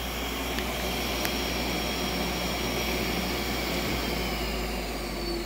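Vacuum dust extractor running steadily, drawing air through the router fence's dust hose, a steady whir with a high whine that slides slightly lower in pitch near the end.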